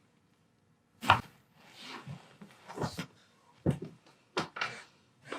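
A sharp crack about a second in, the loudest sound, then a few softer knocks, rustles and a breath-like hiss: handling noises during a chiropractic adjustment on a treatment table.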